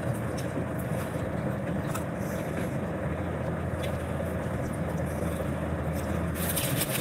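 Steady low rumbling hum of background noise, with a few faint mouth clicks of someone chewing food.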